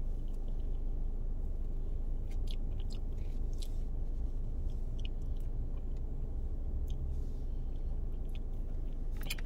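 Mouth sounds of someone eating sherbet from a plastic spoon: scattered small smacks and clicks of lips and tongue while tasting, over a steady low hum.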